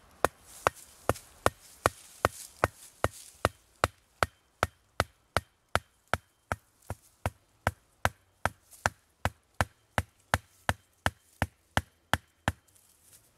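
Hatchet hammering a short wooden stake into the ground: a steady run of sharp wooden knocks, about two and a half a second, that stops shortly before the end.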